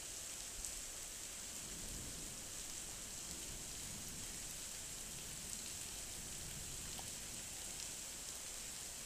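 Heavy thunderstorm rain pouring down, a steady hiss.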